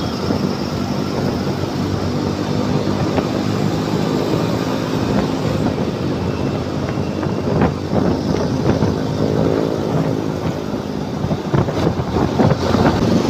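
Motor scooter riding along in city traffic: its engine runs steadily under continuous road and wind noise, with the sound of surrounding motorcycles and cars.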